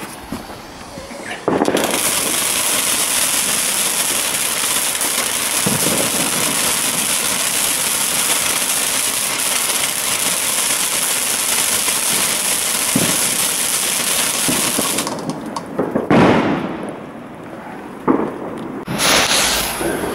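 A garden firework fountain, the "Midnight Shot", catches about a second and a half in and sprays sparks with a loud, steady hiss. It cuts out about two-thirds of the way through. A few separate knocks and rustles follow near the end.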